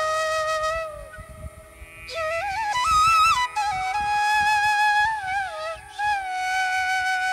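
Background music: a flute playing a slow melody of held notes with slides between them, dropping away briefly about a second in.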